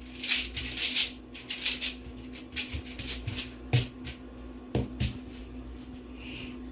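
Handling noise of cooking gear: short bursts of rustling and crinkling in the first two seconds, then a few dull knocks about four and five seconds in, over a steady low hum.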